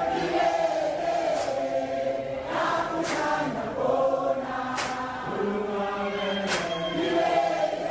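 Many voices singing together in a chant-like choral song, with a short sharp hit recurring about every 1.7 seconds.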